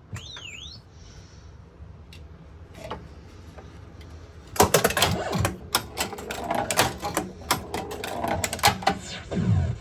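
Gottlieb Spring Break pinball machine being played: a brief electronic swooping sound near the start, then from about halfway a rapid run of sharp mechanical clacks and knocks from the ball, flippers and solenoids.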